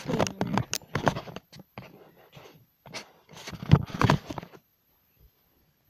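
Handling noise of a camera being carried and set down: fabric rustling over the microphone and a series of knocks and clicks, stopping about four and a half seconds in.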